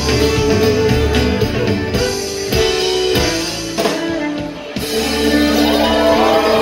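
Live string band playing through a club PA, with acoustic guitar and fiddle carrying sustained notes. The music thins out briefly about four seconds in, then comes back full.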